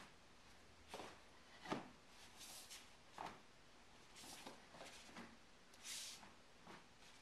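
Faint, scattered sounds of a barefoot taekwondo form on foam mats: a handful of soft thuds of feet landing and stepping, the strongest a little under two seconds in, between short airy swishes of movement.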